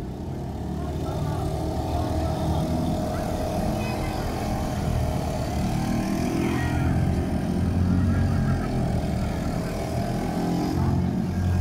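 Small motors of inflatable bumper boats running as they move about on the water, a steady low buzz that rises and falls a little.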